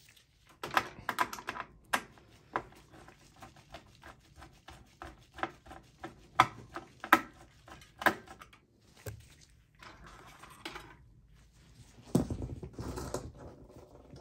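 Phillips screwdriver backing out motherboard screws in a desktop PC's metal chassis: a run of small, irregular sharp clicks and metallic ticks, with louder rustling handling noise near the end.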